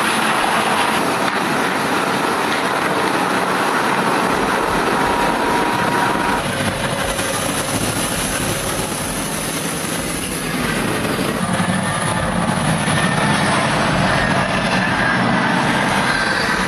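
Cat 793F mining haul truck running as it drives, a steady, loud, heavy mechanical rumble and rattle.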